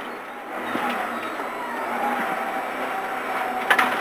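Subaru WRX rally car's turbocharged flat-four engine, heard from inside the cabin, running steadily at modest revs over road noise. A single sharp knock about three and a half seconds in.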